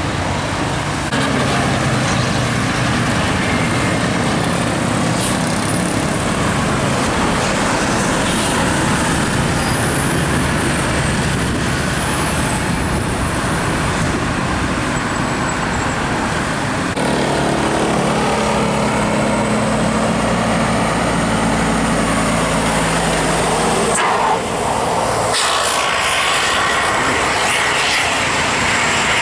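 Road traffic passing on a climb, with vehicle engines and tyres running steadily. A little past halfway a heavy vehicle's engine hum stands out for several seconds, then fades.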